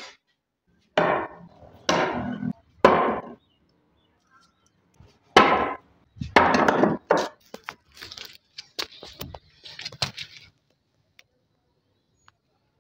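Blade of a kunai forged from leaf-spring steel chopping into wood: three hard strikes about a second apart, two more after a pause, then a run of lighter knocks.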